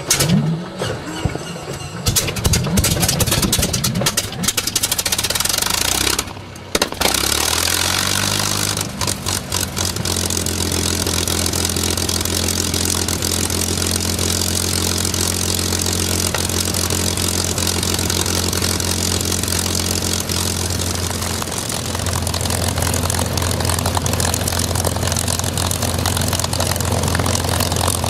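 P-51 Mustang's piston aero engine starting up: it cranks and coughs unevenly for several seconds, pauses briefly, then catches about seven seconds in, rises in pitch and settles into a steady idle.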